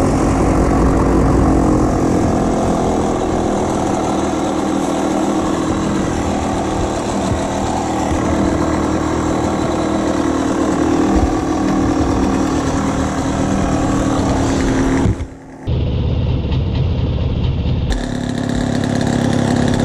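Yamaha DT 125's two-stroke single-cylinder engine running at a steady speed, with a short break about fifteen seconds in.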